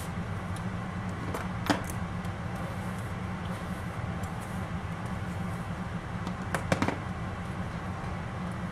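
Steady low room hum with a few light clicks: one about two seconds in and a quick cluster of two or three near seven seconds.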